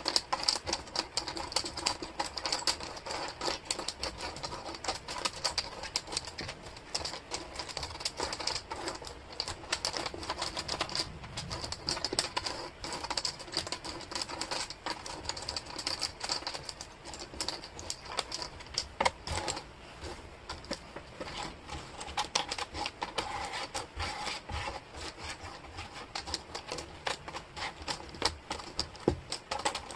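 Small wooden jigsaw puzzle pieces clicking and clattering against each other and the tabletop as hands sort and slide them around, a dense, irregular run of light clicks.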